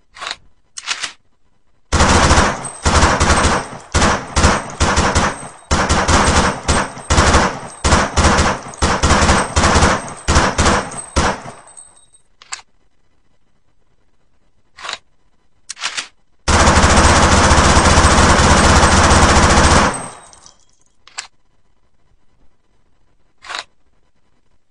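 FN P90 submachine gun (5.7×28 mm) firing: two single shots, then about ten seconds of short automatic bursts, a few spaced single shots, one long unbroken burst of about three and a half seconds, and two last single shots.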